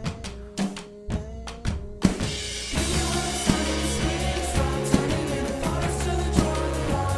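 Indie rock song: sparse drum kit hits over a held melodic line, then the full band comes in about two seconds in, with bass and layered instruments over a steady beat.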